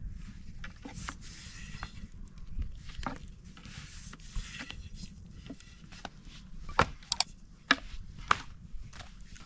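Thin wooden rolling pin rolling and rubbing over floured flatbread dough on a wooden board, a soft swishing, then several sharp wooden clicks and knocks in the last few seconds.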